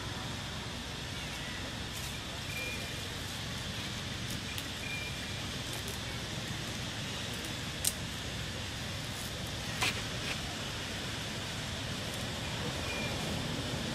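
Steady outdoor background noise, a low rumble and hiss, with a few short high chirps and two sharp clicks, about eight and ten seconds in.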